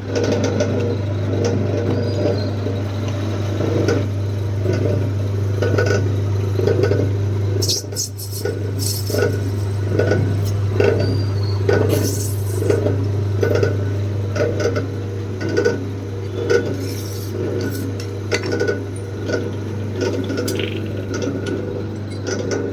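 Lathe running with a steady low motor hum while brass parts are machined and handled, with frequent short metallic clinks and knocks.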